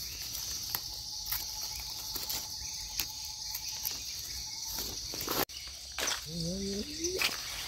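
Steady, high-pitched drone of an insect chorus, such as crickets, with light crackles and rustles of dry leaf litter and twigs as a mushroom is picked and trimmed by hand.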